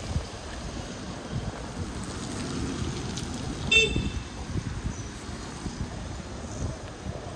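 City traffic noise with one short, sharp vehicle horn toot a little under four seconds in.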